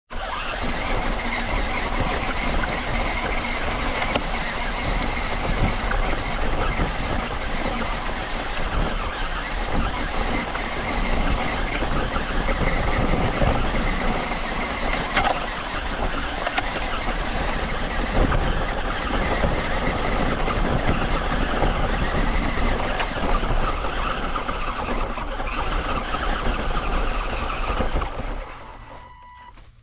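Close-up sound of an RC car driving over dry leaf litter: a steady motor and drivetrain whine under the crackle and crunch of dry leaves beneath its tyres. The sound dies away near the end.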